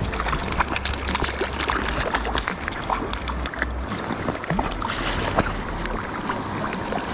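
Mountain river water rushing and gurgling over rocks, full of small splashes and crackles, with wind rumbling on the microphone underneath.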